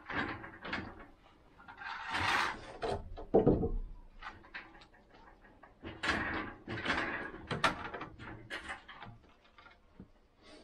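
Irregular knocks, thuds and scraping from builders handling timber roof beams and moving about on a block wall.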